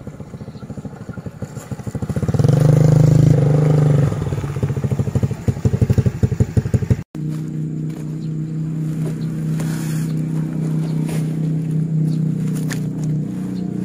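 Small motorcycle engine running as the bike rides up and past, with a fast throbbing beat. After a sudden cut about seven seconds in, a motorcycle idles steadily close by.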